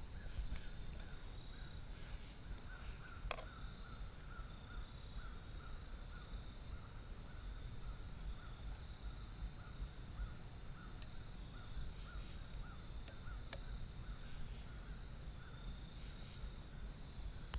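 Woodland ambience: steady high insect trilling, with a faint, evenly repeated call that stops near the end. A few sharp clicks, the loudest about three seconds in.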